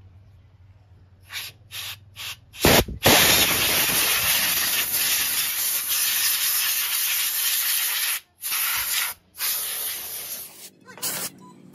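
Pressurised spray hissing from a nozzle: a few short bursts, then one long blast of about five seconds, then a few more short bursts.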